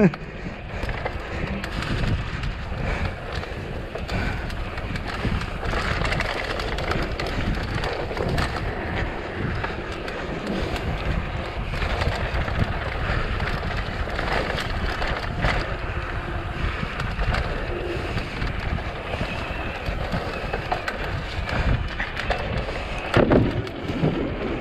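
Mountain bike descending a dirt trail: tyres rolling over the ground with a constant clatter of knocks and rattles from the bike over bumps, and wind buffeting the microphone.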